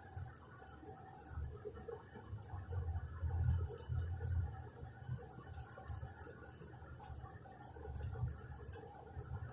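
Faint, irregular small clicks and taps as a cat paws at and mouths a small toy on a rug, over an uneven low rumble.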